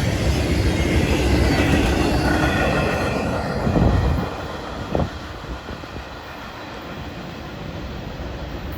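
Freight train cars rolling past with a loud rumble and clatter of wheels on rail, which drops off sharply about four seconds in as the train goes by, leaving a quieter background with one brief sharp sound soon after.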